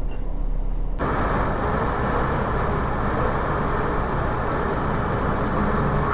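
Steady engine and road noise inside a moving vehicle, picked up by a dashcam. About a second in it cuts abruptly to another recording with a louder, hissier, even drone of the vehicle cruising along a highway.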